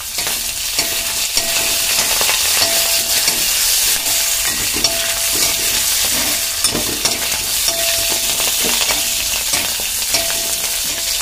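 Onion, dried red chillies and curry leaves sizzling steadily in hot oil in a pot, stirred with a steel spoon that scrapes against the pan.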